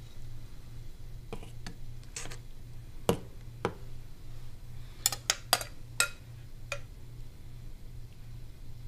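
Metal spoon scraping and clinking against a glass mixing bowl and a metal ring mold as noodle mixture is spooned out, in a scattering of separate clinks, over a steady low hum.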